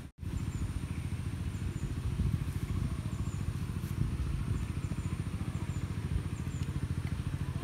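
Low, steady, fast-pulsing throb of an engine running somewhere in the background.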